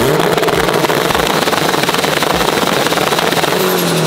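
A car engine held at high revs with a dense, rasping noise during a burnout. The revs drop off near the end.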